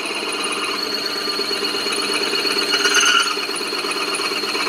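Warco WM 180 lathe running at reduced spindle speed while a 13 mm twist drill in the chuck bores through an aluminium block: a steady machining whir and chatter of the drill cutting. The cutting noise swells briefly about three seconds in.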